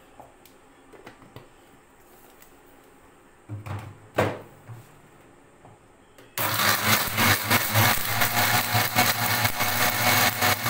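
Electric countertop blender grinding frozen phalsa berries with water. A few light clicks and a brief loud burst come first; about six seconds in the motor starts and runs steadily at full speed, loud, chopping the fruit to a purée.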